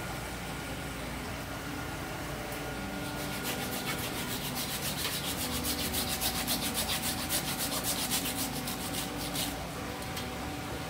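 Hand saw cutting through the base of a sailfish's tail, bone and tough skin, in a run of quick, even back-and-forth strokes that starts about three seconds in and stops about a second before the end.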